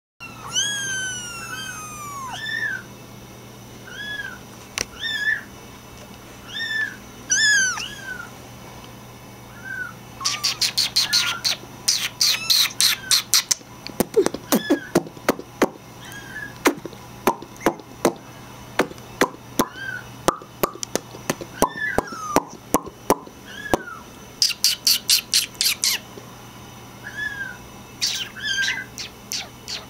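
Maine Coon kittens mewing: short, high, thin mews that rise and fall, a string of them in the first ten seconds and a few more near the end. Through the middle come long runs of rapid sharp chirps or clicks.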